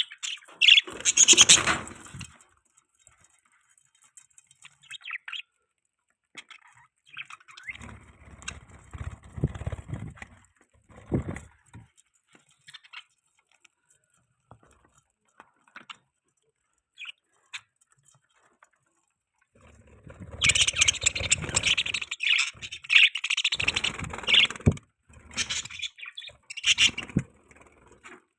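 Budgies chirping and warbling in bursts, the loudest run starting about two-thirds of the way in, with quiet gaps between. Some of the bursts come with low rustling.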